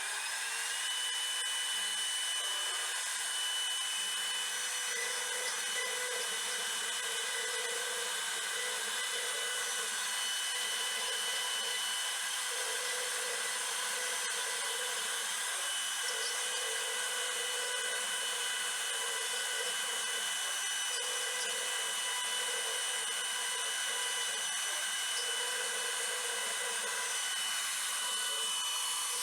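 CNC router spindle whining up to full speed about a second in, then running steadily while it mills wood, with a lower cutting noise that swells and fades every second or two as the bit moves through the board.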